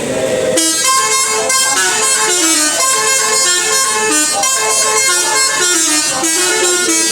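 Telolet bus horn, a set of valve-switched air trumpets, playing a quick melody: several notes a second stepping up and down. It starts about half a second in.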